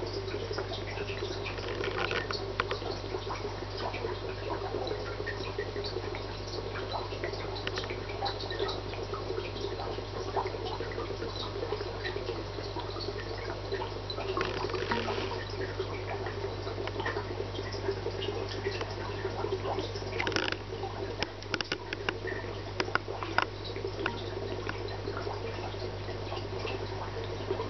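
Aquarium water circulating: trickling and dripping water over a steady low hum, with scattered small clicks that grow more frequent near the end.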